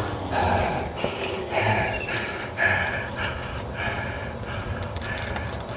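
Several short, breathy bursts of a person's breath close to the microphone, each about half a second long.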